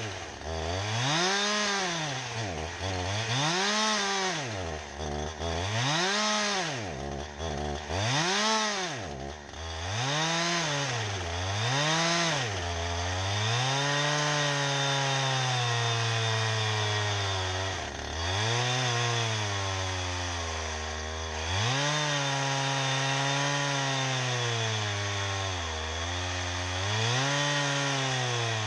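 Gas chainsaw cutting through a large log round. For the first dozen seconds the engine revs up and drops back every couple of seconds; after that it holds a steadier, lower pitch as it bears into the cut, dipping briefly a few times.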